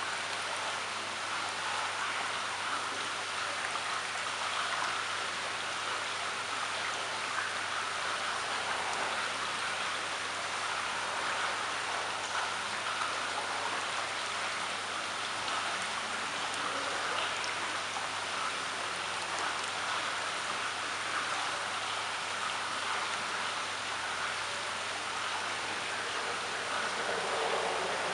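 Steady splashing and trickling of water in a koi pond.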